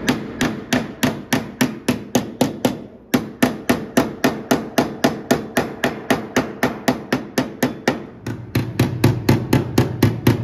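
Rapid, even hammer strikes, about four a second with a short break about three seconds in, landing heavier near the end: a body hammer tapping the dented sheet steel of a Honda Civic's body beside the door opening. The panel is held under tension by a frame-puller chain, and the tapping works the dent back out.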